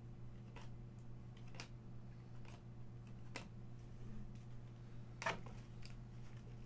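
Baseball cards being flipped through by hand: a scattering of faint clicks and flicks of card on card, the loudest about five seconds in.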